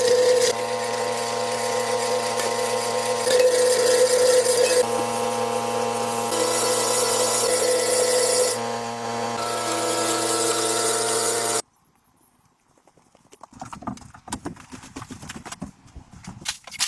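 Woodworking power tool running steadily on wood, its load shifting a few times, then cut off abruptly about two-thirds of the way in. A couple of seconds later come irregular knocks and taps, like wood being handled.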